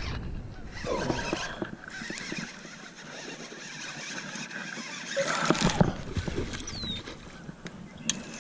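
Irregular knocks and rustling handling noise in a small fishing boat, louder about a second in and again around five to six seconds in.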